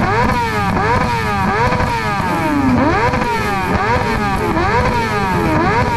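A motorcycle engine revved over and over in quick throttle blips, its pitch rising and falling about every half second.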